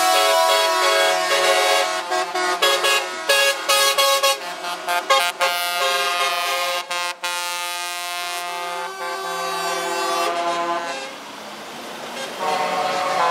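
Truck air horns sounding as trucks drive past one after another, several horns overlapping in long blasts. A run of short toots comes in the middle, there is a brief lull near the end, and then another horn starts.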